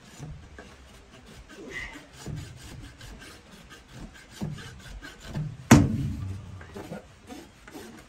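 Farrier's hoof rasp filing a donkey's hoof in repeated short scraping strokes. One sharp, loud clank about six seconds in.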